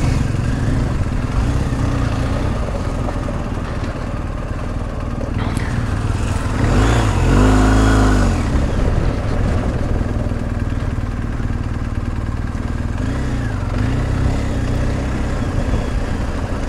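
Motorcycle engines ticking over steadily, with one revved up and back down about seven seconds in and a smaller blip near the end.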